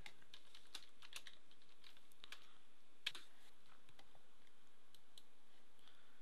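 Computer keyboard and mouse clicks: scattered, irregular key taps and clicks while a file name is typed, with one sharper click about three seconds in.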